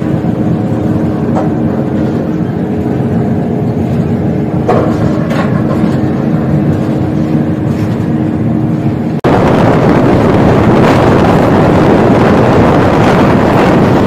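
Moving train heard from the open door of a passenger coach: a steady rumble of wheels on track, with a faint hum and a few sharp clicks over the points. About nine seconds in it jumps suddenly to a much louder, even rush of wind and wheel noise as the train runs through open country.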